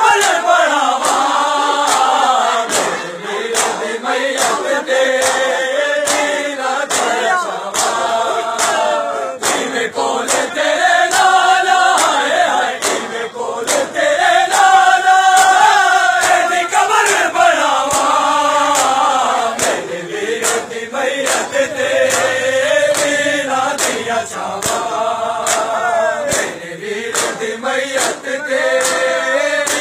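A group of men chanting a Punjabi noha (Shia lament) in unison, with sharp hand slaps of matam (chest-beating) keeping a steady beat about once a second.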